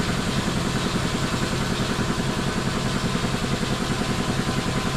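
Shop air compressor running with a fast, even chugging pulse. It keeps cycling on because of an air leak in the vehicle lift.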